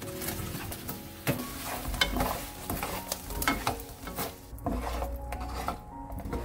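Fried tofu cubes dropping into bubbling gochujang sauce in a nonstick frying pan and being tossed with a wooden spatula: sizzling, with repeated sharp clicks and knocks of the tofu and spatula against the pan.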